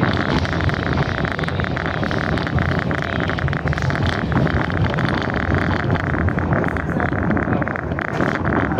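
Passenger train running along the track, heard from aboard: a steady, unbroken rumble and clatter of wheels on rails, mixed with wind noise.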